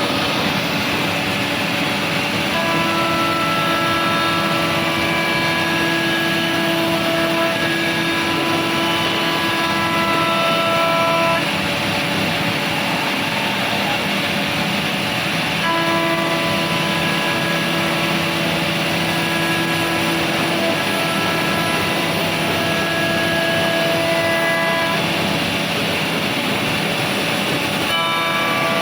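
Bacci Artist TGV 2600 CNC woodworking machining center running: a steady rush of noise with several whining tones that come in and drop out every few seconds as the machine works.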